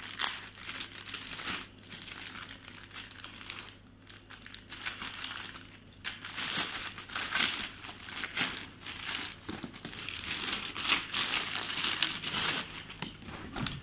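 Plastic courier mailer bag crinkling and rustling as it is snipped with scissors and then torn open by hand, the crinkling louder and busier from about six seconds in.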